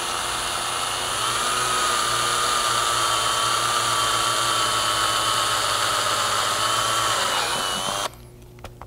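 Cordless drill with a 1/4-inch bit running steadily as it bores through plastic trim, its motor whine stepping up in pitch about a second in. The pitch sags slightly near the end before the drill stops suddenly.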